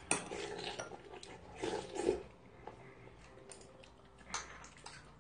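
A person eating at close range: chewing and slurping, with a sharp click of cutlery against a bowl just after the start.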